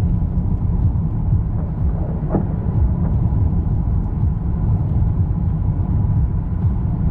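A loud, steady low rumble with no distinct events.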